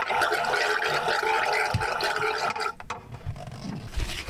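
Small rechargeable water pump running as water pours over a plate into a stainless steel sink for about three seconds, then stops. After it, quieter rustling of paper towel being pulled from the roll.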